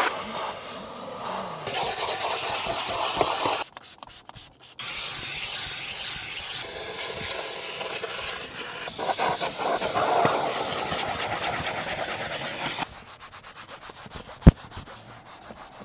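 Rubbing and scrubbing of a brush or cloth over car interior surfaces during steam cleaning, with a steamer's hiss. The noise comes in short stretches that start and stop abruptly, and one sharp click sounds near the end.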